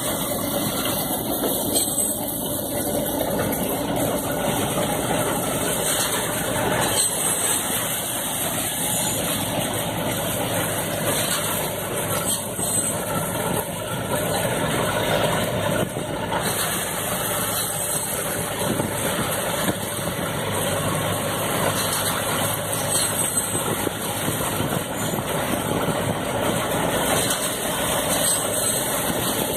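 An engine running steadily at an even level for the whole stretch, with no change in speed.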